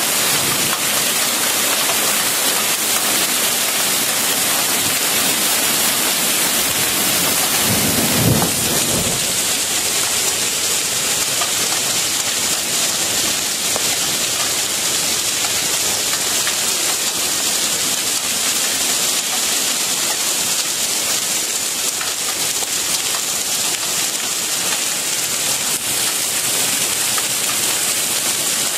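Heavy rain mixed with hail pouring down in a thunderstorm, a dense steady hiss of drops and hailstones striking surfaces. A short low rumble of thunder comes about eight seconds in.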